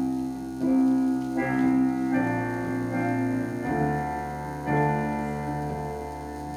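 Keyboard music of slow, held chords that change to a new chord every second or so.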